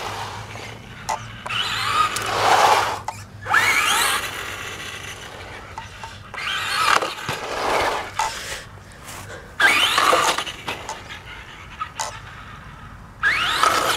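Traxxas Rustler XL-5 RC truck's brushed electric motor whining up in pitch in about five short bursts of full throttle, with its tyres rushing on concrete.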